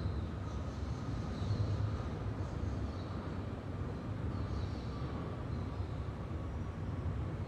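Steady low background rumble with faint high tones over it.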